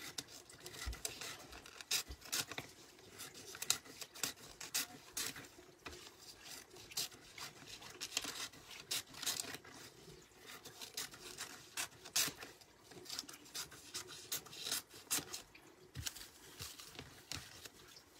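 Scissors snipping through a sheet of paper, cutting it into small slips: a run of irregular short snips with the paper rustling as it is handled.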